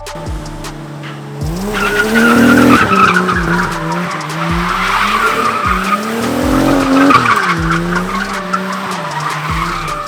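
A drifting car's engine revs up and drops back twice, and its rear tyres squeal steadily through the slides from about a second and a half in.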